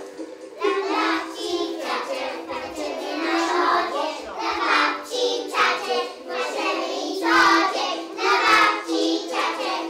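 A group of young children singing a song together over instrumental backing music. The voices come in about half a second in, after an instrumental passage.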